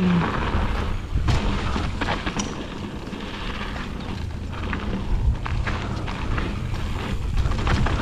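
Mountain bike riding a packed-dirt jump trail: wind buffeting the microphone as a low rumble, with tyre noise and scattered clicks and knocks from the bike over the bumps.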